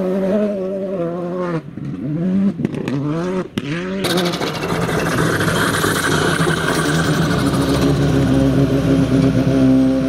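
Volkswagen Polo GTI R5 rally car's turbocharged four-cylinder engine at full throttle on gravel, its pitch climbing and dropping through rapid gear changes, with a few sharp cracks. About four seconds in, the sound gives way to a steadier, slowly rising engine note as the car approaches.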